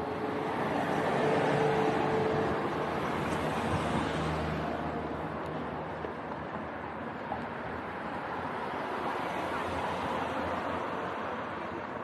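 Road traffic: cars passing on the street alongside, a steady noise of tyres and engines that swells about a second in and again about nine seconds in.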